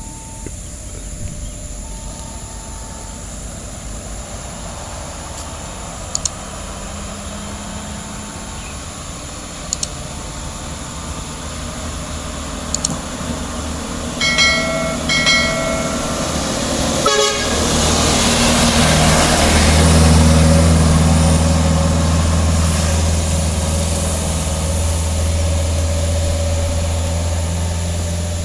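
Vehicle horn tooting twice, short and close together, about halfway through. Then a heavy truck's diesel engine grows loud as it passes close and fades slowly.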